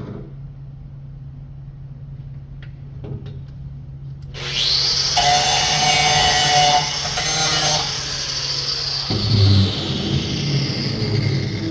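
Electric power tool working aluminum: it starts about four seconds in with a quickly rising whine, runs loud under load for a few seconds, then its whine slowly falls as it winds down. A steady low hum and a few light ticks come before it starts.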